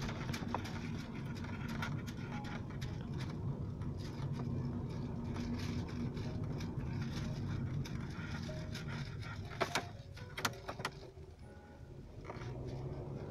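Steady engine hum and road noise inside a moving car, with a few sharp clicks about ten seconds in. The noise drops off briefly near the end, then picks back up.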